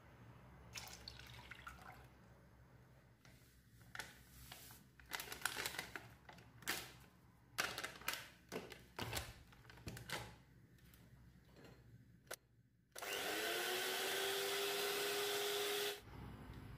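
A spoon scraping and knocking against a glass bowl as Chantilly powder is stirred into cold milk. About thirteen seconds in, an electric hand mixer starts whipping the mixture, rising in pitch as it spins up, then runs steadily for about three seconds before stopping suddenly.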